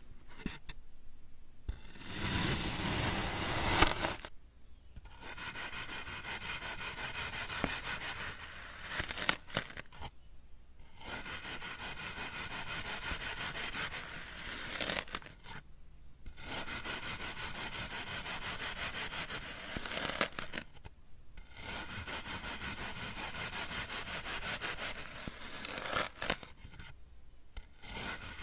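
A knife slicing slowly through a dense foam sponge block, each cut a grainy scraping rasp lasting three to four seconds. About five slices follow one another with short pauses between.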